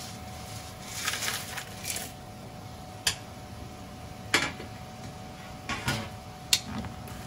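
Small dried sardines (gomame) tipped from a metal tray into a frying pan of hot sauce: a rustling slide about a second in, then several sharp metal knocks and clatters of cookware, the loudest near the end.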